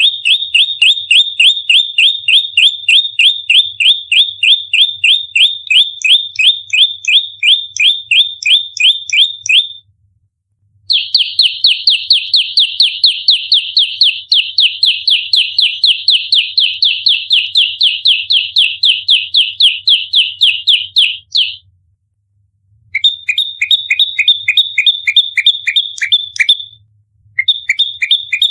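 Prenjak lumut singing its rapid-fire fighting call: a fast, even string of short, sharp high chips, about four a second, in long runs broken by brief pauses.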